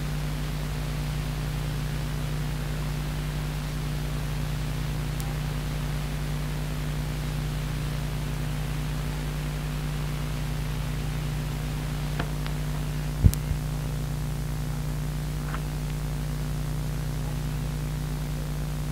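Steady electrical hum with tape hiss from the blank stretch of a cassette recording, broken by one sharp click about 13 seconds in, with a fainter tick just before it.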